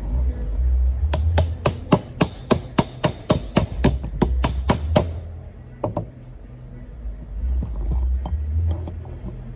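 Hammer striking a large punch set on the stator-shaft bearing of a CYC X1 Pro Gen 2 e-bike mid-drive motor, to drive the bearing off. It is a fast run of about twenty sharp taps, four to five a second, for about four seconds, followed by a couple of lone knocks.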